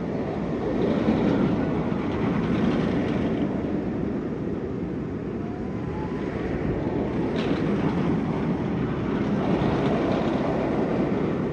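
Steel roller coaster train running along its track, a steady rumble that swells and eases as it moves through the elements.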